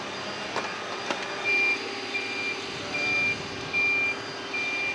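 Forklift reversing alarm beeping steadily, a little more than once a second, over the forklift's running hum. Two sharp knocks come in the first second or so, before the beeping starts.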